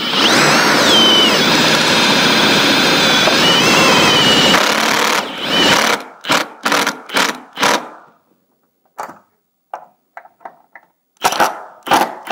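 Cordless power driver running for about five seconds, driving a self-tapping screw through a vacuum block into the car's strut tower, its motor pitch dipping and rising as it goes. It is followed by a string of short clicks and knocks.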